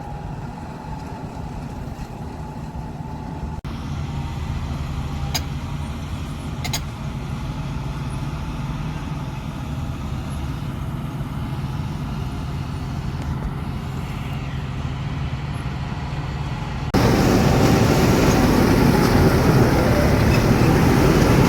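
John Deere 5310 combine harvester running steadily at work, a low engine hum with machinery noise over it. A couple of brief clicks come a few seconds in, and about four seconds before the end the sound suddenly gets much louder.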